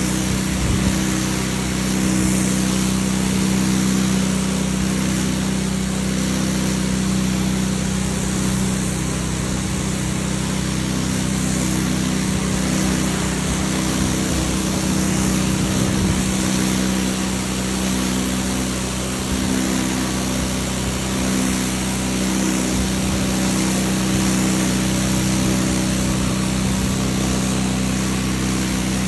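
Pressure washer running steadily: a constant machine drone from its motor and pump, with the hiss of the high-pressure jet from the lance striking wet asphalt.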